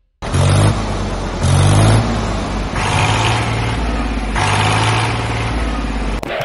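Mini tractor's engine running as it drives along, a steady low hum whose note shifts a few times. It starts abruptly just after the beginning.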